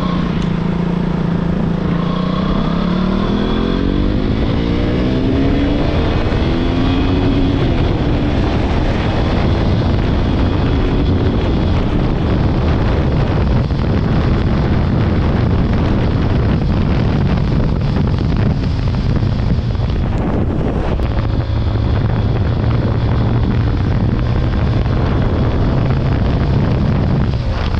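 KTM RC 200's single-cylinder engine being ridden. It accelerates with its pitch rising over the first several seconds, then cruises steadily under a loud rushing noise.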